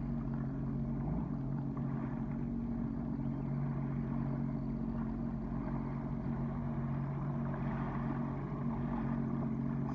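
Sea-Doo Fish Pro jet ski engine idling with a steady, even hum, under a constant rushing noise.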